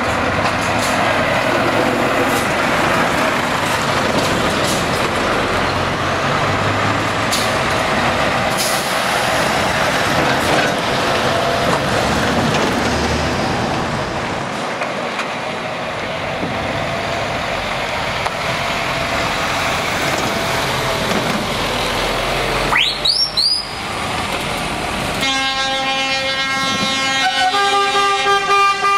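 Diesel engines of heavy trucks pulling away and driving past, with a brief rising squeal about 23 seconds in. From about 25 seconds a loud air horn with several notes starts up, sounding a train-horn style chord that steps between pitches.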